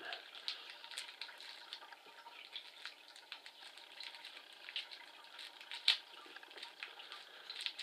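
Small metal pop rivets clicking against each other and the plastic packet crinkling as they are picked out by hand one at a time and counted. There are many light irregular clicks and one sharper click about six seconds in.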